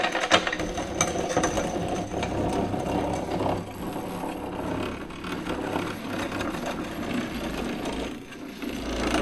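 Wooden picnic table with metal tube legs being dragged across sandy ground: a continuous scraping, with a few sharp knocks near the start.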